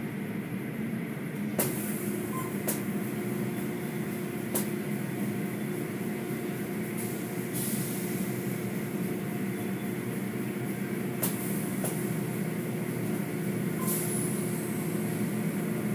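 Automatic tunnel car wash running with a steady machine hum as foam pours and cloth curtain strips sweep over a car. A few sharp clicks are scattered through it.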